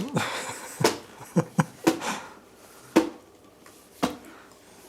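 Irregular sharp clicks and knocks, about seven spread over several seconds, with a brief rustle just after the start.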